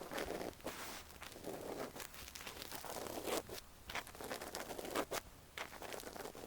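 Ear-cleaning sounds close to the microphone: irregular scraping, rustling and crackling, with small sharp clicks throughout.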